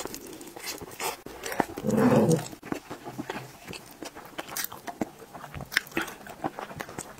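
Close-miked chewing of gelatinous pork trotter skin and tendon: wet mouth clicks and lip smacks scattered through, with a brief hummed sound about two seconds in.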